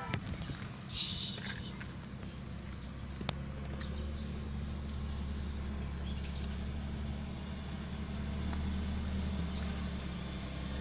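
A motor running with a steady low hum that grows stronger about three and a half seconds in, with a few light clicks in the first few seconds.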